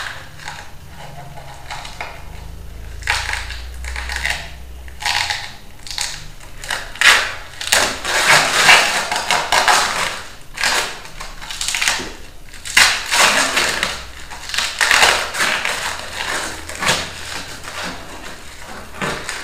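Irregular rustling and scraping from hands working parts at the rear of a motorcycle, in noisy bursts under a second long that come thickest about halfway through.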